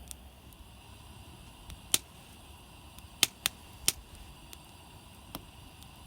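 A handful of sharp clicks or knocks at uneven spacing, loudest about two seconds in and three close together just past the middle, over a faint steady hiss.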